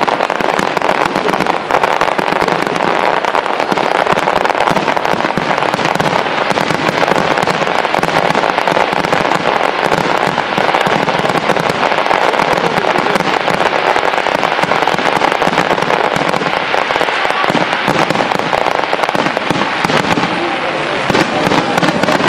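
Aerial fireworks going off continuously, a dense run of crackles and pops with no break, over the voices of the onlooking crowd.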